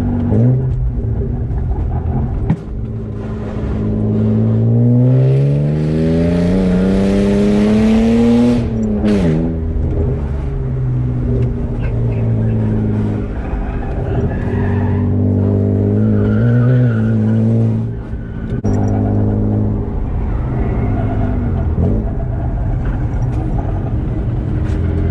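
BMW E36 engine under load on a spirited drive: the revs climb steadily through a gear for about five seconds, drop sharply at the shift, then run mostly steady with smaller rises and falls.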